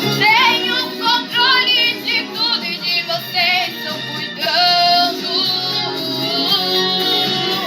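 A Christian worship song: a high voice sings a wavering melody with vibrato over sustained instrumental accompaniment.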